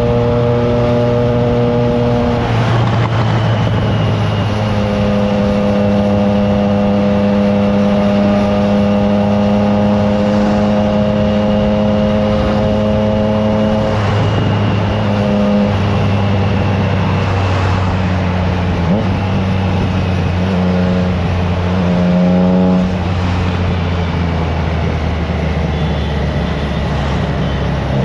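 Triumph Trident 660's inline three-cylinder engine running through a FireTong aftermarket exhaust while riding at road speed. The engine note holds steady for long stretches and changes pitch a few times with throttle and gear changes.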